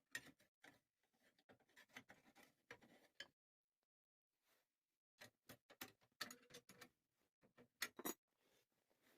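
Faint, irregular light clicks and knocks in two clusters, one over the first three seconds and another from about five to eight seconds in, with no machine running.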